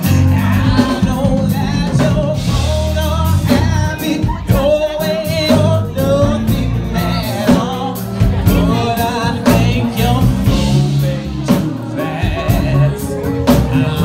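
Live R&B song: a solo singer's voice with sliding, wavering vocal runs over an accompaniment with a steady drum beat.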